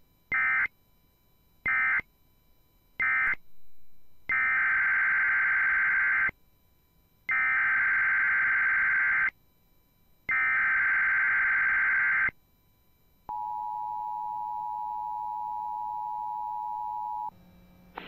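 Emergency Alert System tones: three short digital data bursts that make up the end-of-message code closing the previous alert, then three longer, about two-second SAME header data bursts announcing the next alert. About a second later comes the EAS two-tone attention signal, held steady for about four seconds before it cuts off.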